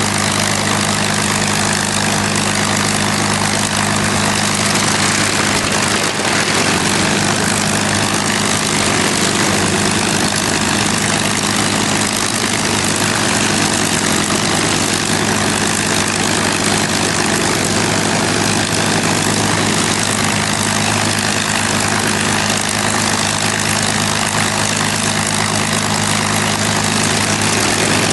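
Packard Merlin V-12 engines of P-51 Mustang fighters idling steadily on the ground, propellers turning.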